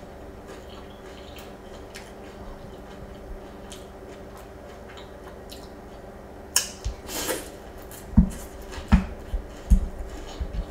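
Close-miked eating of Trix cereal in milk with a wooden spoon from a glass bowl. Faint clicks come first; about six and a half seconds in a spoonful goes into the mouth with two loud sudden sounds. Then comes chewing, about one sharp crunch every 0.7 seconds.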